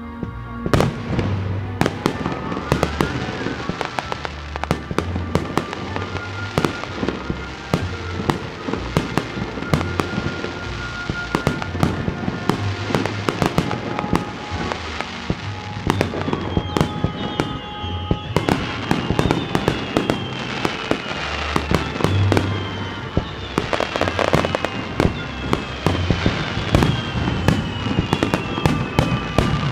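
Fireworks display: many sharp bangs and crackles of shells bursting in quick succession, with music playing throughout.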